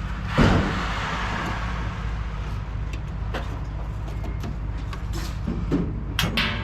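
Scattered metal knocks and clicks from scrap being worked apart by hand, over a steady low hum. The loudest is a knock about half a second in, followed by a scraping hiss that fades over a couple of seconds.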